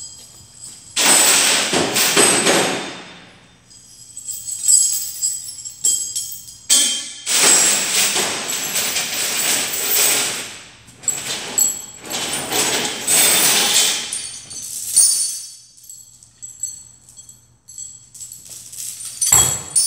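Loose metal jingling and rattling in irregular bursts of a second or two, with a bright ringing shimmer that carries on between them.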